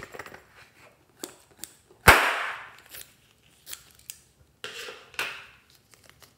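A blue rubber balloon bursts with one sharp pop about two seconds in. Small clicks and rustles follow as the burst balloon skin is handled.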